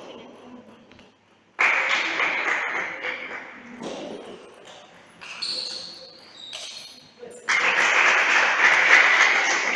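Spectators cheering and shouting as points are won in a table tennis match: a sudden burst of cheering about one and a half seconds in that fades, and a louder one near the end. Between them, light taps of the ball on the table and bats.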